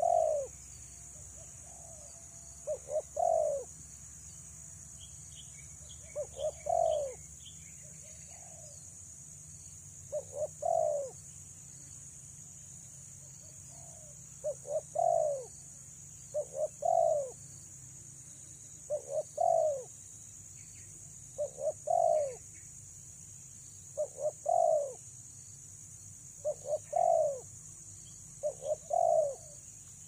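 Spotted dove cooing: repeated phrases of two or three short notes and a longer falling coo, coming every two to four seconds.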